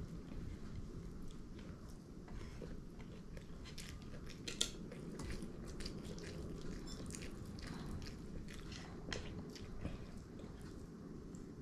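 Close-up eating of fried fish: biting and chewing, with irregular small crunches and mouth clicks. The sharpest crunch comes about halfway through, over a steady low background rumble.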